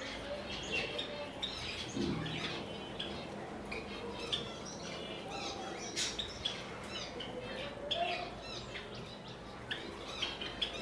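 Caged white Java sparrows chirping: many short, quick chirps from several birds, overlapping and continuous, with a sharp click about six seconds in.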